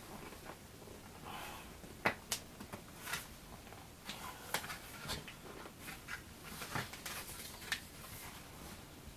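Irregular small clicks, taps and light scratching of hand work on model airplane parts and tools at a workbench, with the sharpest tap about two seconds in.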